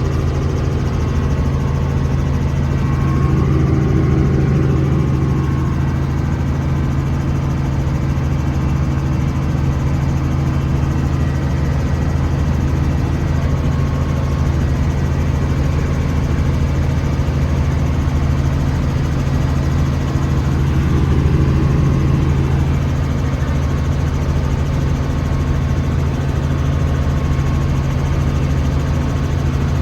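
Helicopter in flight, its engine and rotor making a steady low drone with a strong hum.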